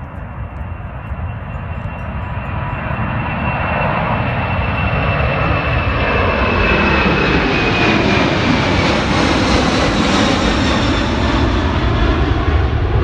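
Four-engine Boeing 747 jet climbing out after takeoff and passing overhead: a broad engine roar that builds to its loudest about halfway through and holds, with a high whine that slides down in pitch as the plane goes over.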